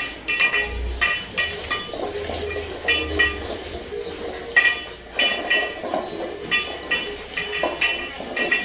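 Stainless steel dog food bowls clinking and rattling on a tiled floor as several dogs eat from them: repeated ringing metal clinks at irregular intervals.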